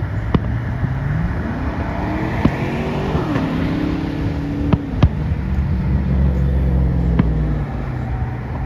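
A vehicle engine accelerating, its pitch rising for about two seconds, then dropping as if at a gear change and running steadily lower. Sharp firework bangs go off several times over it, the loudest about five seconds in.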